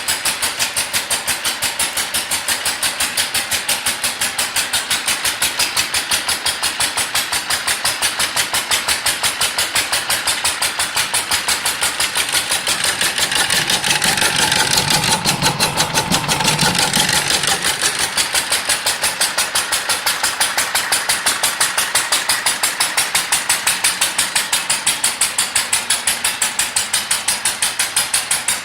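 International Harvester LB single-cylinder stationary engine running belted to a corn grinder, with a steady, even exhaust beat. The sound grows louder for a few seconds around the middle, then settles back to the same beat.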